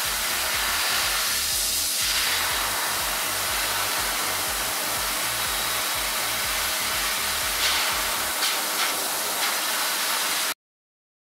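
Metrovac Air Force Master Blaster high-velocity dog dryer blowing air through a standard poodle's coat: a very noisy, steady rushing hiss that cuts off suddenly near the end.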